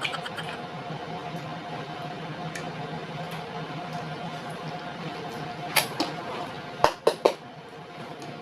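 A few sharp clinks and taps at the table, one about six seconds in and a quick run of three about a second later, over a steady low hum.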